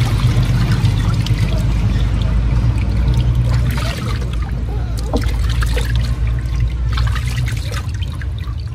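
Water splashing and trickling as a hand scoops and pours it over a puppy standing in a plastic tub, with irregular small splashes, over a steady low hum.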